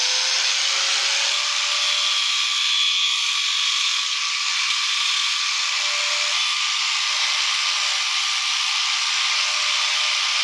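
Small high-speed power tool running steadily, a constant whine over a strong hiss.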